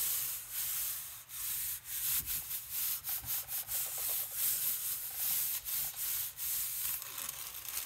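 Flat palms rubbing white tissue paper down onto an inked gel printing plate to pull a print: a dry swishing hiss in quick, uneven strokes.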